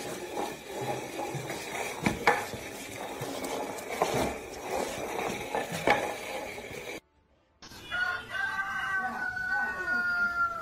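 A potted plant's pot scraping and knocking across a tiled floor as a dog drags it. After a short break, a rooster crows one long, slightly falling call.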